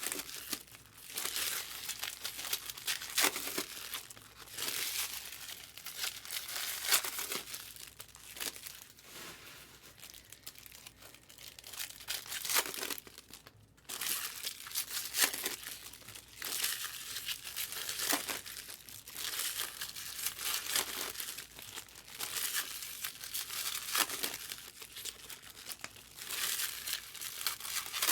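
Foil wrappers of trading card packs crinkling and tearing as packs are ripped open and handled, in irregular bursts with a short lull about halfway through.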